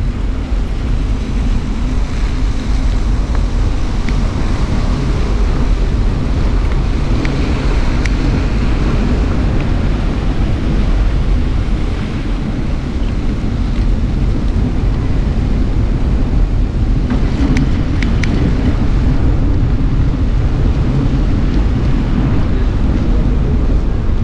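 Wind rumbling over the microphone of a handlebar-mounted GoPro Hero 8 as a trekking bike rolls along: a steady low buffeting, with a few light clicks about three-quarters of the way through.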